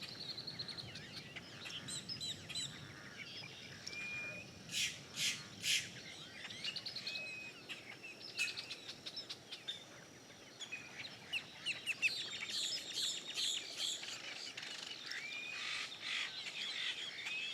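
Many wild birds chirping and calling over one another, with a cluster of three louder calls about five seconds in.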